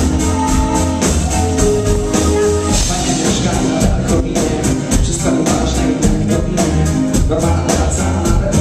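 Live rock band playing a song with a steady beat, heavy bass, drums and guitar, while a vocalist sings into a microphone; loud, recorded from within the audience.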